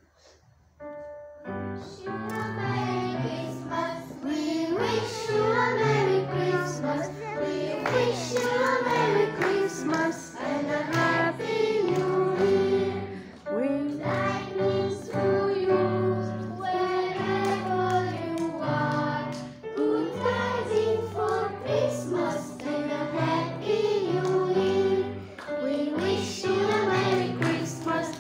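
Children's choir singing a song over instrumental accompaniment, starting about a second and a half in.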